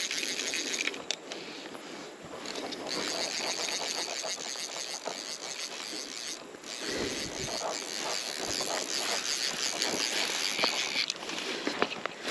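Outdoor riverside ambience: a steady high insect buzz, with scattered rustling and small ticks close by. The buzz drops out briefly about halfway through and again near the end.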